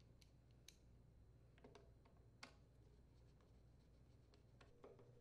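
Near silence with faint, scattered clicks of a screwdriver turning screws into a plastic air filter housing on a small engine.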